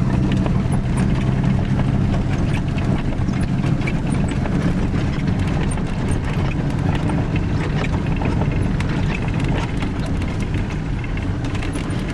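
Steady engine and road noise heard inside a vehicle's cabin as it drives along a rough dirt road, with a constant low hum and many small rattles and knocks throughout.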